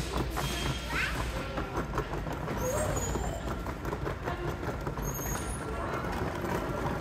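Subway station concourse ambience: a steady low rumble under an even hiss, with scattered faint clicks and knocks and a few short, thin pitch glides.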